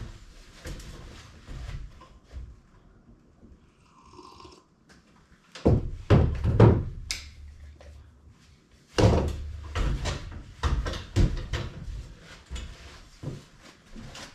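Irregular knocks and thuds of a person climbing ladder steps up into a loft and moving about on it, with two louder clusters of heavy thumps partway through.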